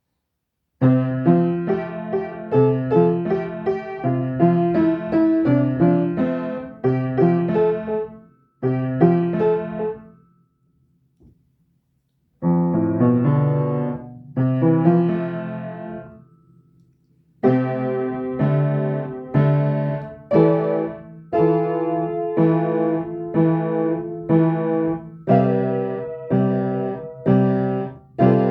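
Piano played in chordal phrases. It starts about a second in and stops and restarts a few times, with the longest pause, about two seconds, near the middle, then plays on without a break.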